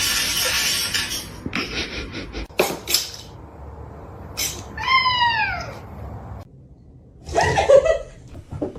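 A domestic cat meowing: one clear meow, rising then falling, about five seconds in, with a louder call near the end. Short knocks and rustling come before it.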